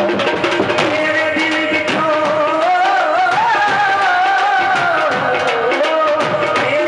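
Live Sufi devotional song with harmonium: a man's voice sings a long, ornamented line that climbs near the middle and falls back, over a steady beat of tabla and dhol.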